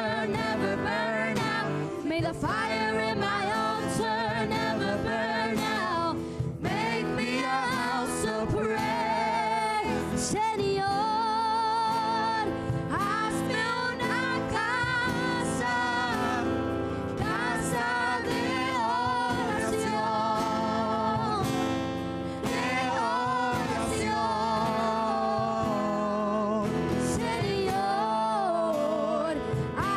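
Live worship song: sung vocals with vibrato over guitar accompaniment, carrying on without a break.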